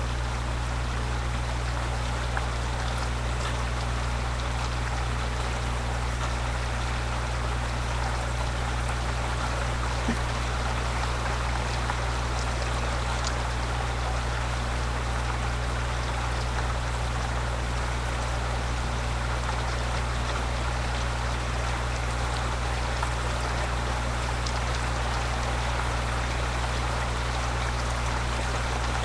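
Steady heavy rain falling as a thunderstorm dies down, an even hiss with no thunder, over a constant low hum.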